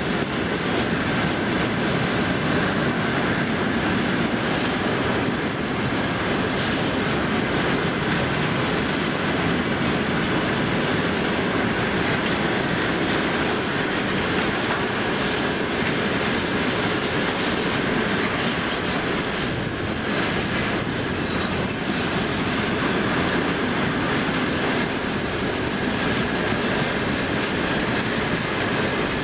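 A long freight train of railway tank cars rolling past close by: a steady rumble of steel wheels on rail with repeated clacks as the wheelsets cross rail joints.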